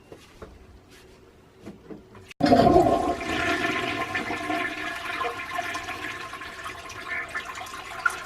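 Toilet flushing: a loud rush of water that starts abruptly about two and a half seconds in, after a few faint clicks.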